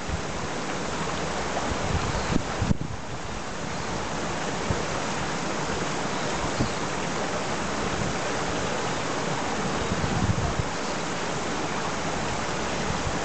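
Steady rush of a shallow river running over stones, with a few brief louder splashes from dogs wading in it and a low uneven rumble of wind on the microphone.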